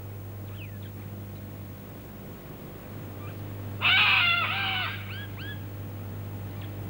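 Wild birds calling: short, hooked chirps here and there, and about four seconds in a much louder call in two parts, all over a steady low hum.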